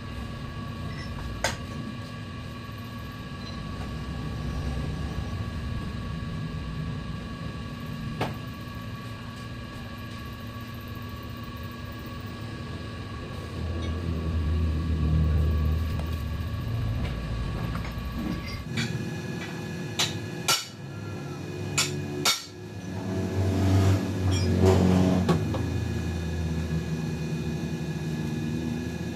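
Metal lathe running with a steady hum of several fixed tones, with occasional sharp metal clicks and clinks. The sound changes abruptly about two-thirds through, followed by a few clinks and a swelling of the hum.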